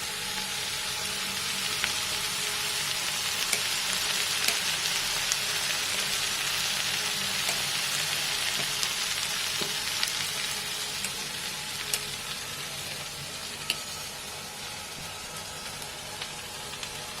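Chopped onions frying in hot oil in a pan: a steady sizzle that swells a little midway and eases off toward the end, with a few sharp clicks scattered through it.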